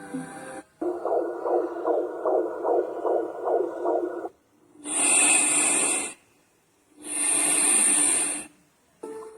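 Built-in soothing sounds of a white-noise baby plush toy: first a pulsing sound at about three beats a second, then two bursts of hissing noise about a second long each, with a short gap between them.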